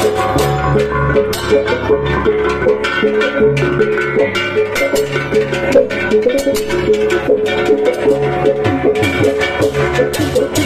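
Balinese gamelan music: tuned metal percussion and drums playing a dense, rhythmic pattern of quick repeated notes.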